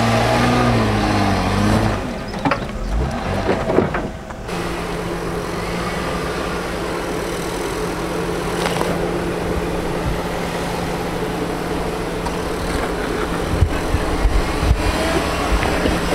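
Jeep Wrangler's V6 engine running as the truck crawls over rocks, its note rising and falling in the first couple of seconds, then settling into a steady drone. A few sharp knocks come near the end.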